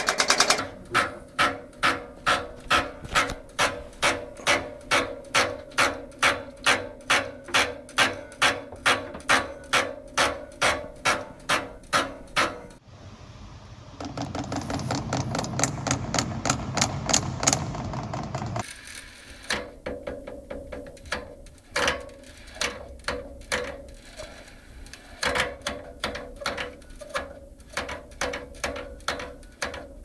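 Heating valves knocking and hammering: a thermostatic radiator valve knocks steadily about twice a second, each knock ringing, then an underfloor heating manifold's valves rattle faster about halfway through, then knocks come in irregular clusters. The noise is caused by water flowing through the valves against the arrow on the valve body.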